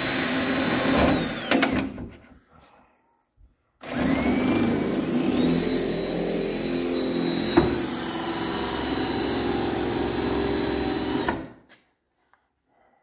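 DeWalt cordless drill running steadily with a high motor whine, drilling holes in a car hood for hood pins. It stops about two seconds in, starts again about two seconds later and runs until shortly before the end.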